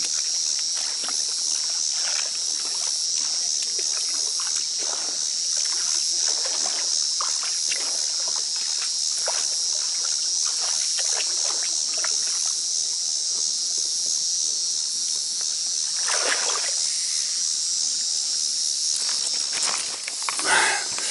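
Water sloshing and splashing in short irregular splashes as a small boat, swamped because its drain plug was left out, is handled and tipped in shallow water, over a steady high chorus of insects. Near the end comes a louder clatter of the camera being handled.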